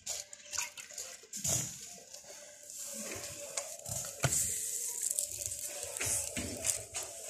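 Hands slapping and patting soft roti dough into shape, a series of soft, wet smacks, with a sharper knock about four seconds in as the roti is pressed onto the tandoor's clay wall. A steady high hiss runs underneath.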